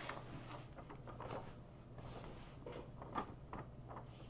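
Plastic protective film of a diamond painting canvas crinkling faintly as it is lifted back and handled, in a string of short crackles with one sharper click about three seconds in.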